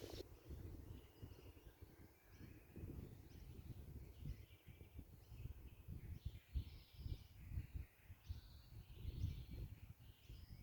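Wind gusting against the microphone in uneven low rumbles, with fainter bird calls, short notes repeated many times.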